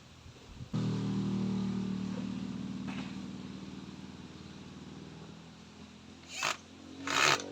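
A motor engine starts abruptly about a second in and runs with a steady low hum that slowly fades away. Near the end come two short rasping noises, the second one louder.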